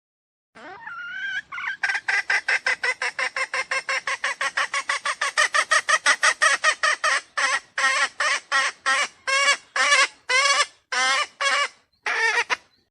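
Junglefowl lure call: a long run of short, pitched clucking calls, about four a second at first, spacing out to about two a second in the second half and stopping shortly before the end.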